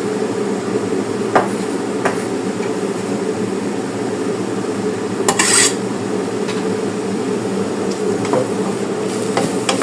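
A metal utensil knocking and scraping against a cooking pot while callaloo and eggplant are stirred together: a few sharp knocks and one brief, louder scrape about five seconds in, over a steady low hum.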